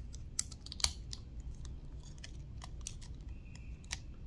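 Light, irregular clicks and taps of a toy robot figure being handled, its jointed parts knocking together. The loudest clicks come about half a second and a second in, and again near the end.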